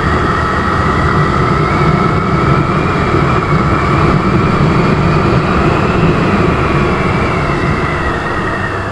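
Motorcycle engine running under way with wind and road noise, its pitch rising slowly as the bike speeds up and dropping near the end as it eases off.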